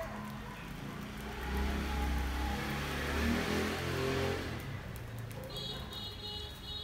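A motor vehicle passing by: a rumbling noise that swells about a second and a half in, peaks around the middle and fades away. Several high steady tones start near the end.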